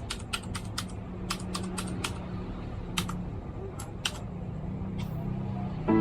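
Keys being pressed on a Ducky Shine 3 TKL mechanical keyboard: a quick run of keystrokes in the first second, then scattered single presses. Piano music comes in at the very end.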